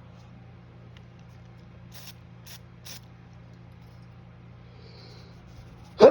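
Three short hisses of a perfume spray, about half a second apart, followed near the end by the sudden, loud onset of a sneeze.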